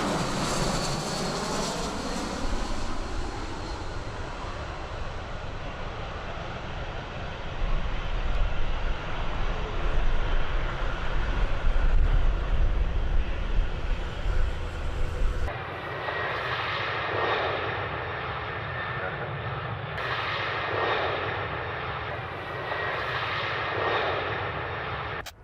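Aircraft engines running loud as a plane passes during a takeoff or landing, with a heavy low rumble building midway. About fifteen seconds in it cuts abruptly to another aircraft whose engine noise swells and fades several times.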